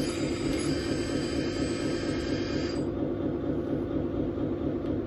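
Radio-controlled Lesu hooklift truck model running with a steady mechanical hum. A higher whine over it cuts off about three seconds in.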